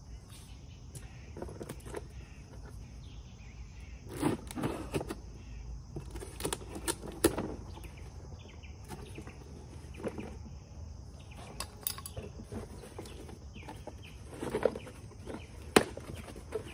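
Small cardboard box being opened by hand: scattered taps, scrapes and rustles of the tape and cardboard flaps, in short clusters with pauses between, over a steady background hiss.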